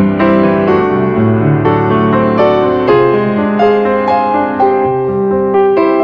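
Background piano music: a gentle melody of notes played one after another over sustained chords.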